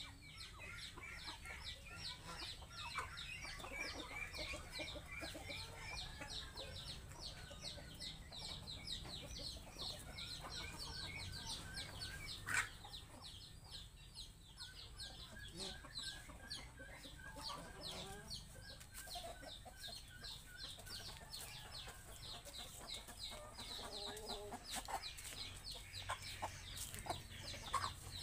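Chickens clucking in short runs of notes, over a constant fast high-pitched chirping, with one sharp click near the middle.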